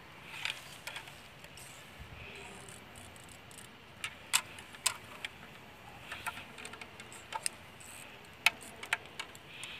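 Irregular small, sharp clicks and ticks, a dozen or so spread over several seconds, with the loudest about three-quarters of the way through, like small plastic parts and hand tools being handled over a faint steady hiss.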